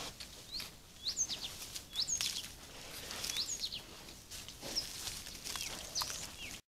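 A songbird calling with short, sharply rising high chirps, repeated roughly once a second, over faint outdoor background sound; the sound cuts off suddenly near the end.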